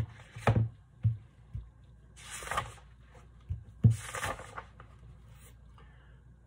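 Hardcover picture book being handled and opened: a few light knocks and two rustling swishes of paper as the cover and pages are turned.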